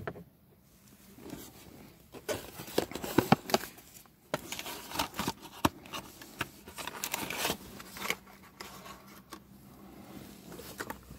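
Food packaging being handled: irregular rustling and scraping with many sharp clicks, starting about two seconds in after a single sharp click.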